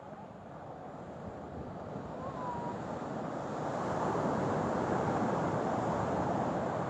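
Ocean water surging and washing, swelling louder toward the middle, with some wind on the microphone.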